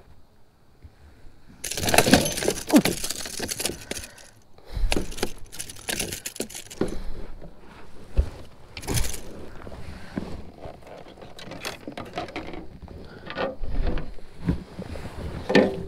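A just-caught smallmouth bass flopping on the plastic floor of a fishing kayak, with irregular knocks, rattles and clinks of the hooked lure and gear being handled. It is busiest about two seconds in.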